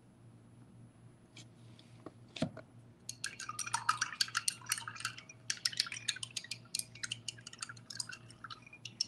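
A single knock about two and a half seconds in, then a long run of quick clinking and tapping: a paintbrush swished and rattled against a glass jar of rinse water.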